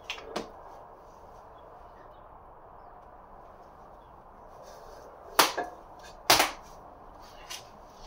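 A steel engine crankshaft being handled and set down: two light clicks at the start, then two loud, sharp metal knocks about a second apart past the middle, and a smaller knock near the end.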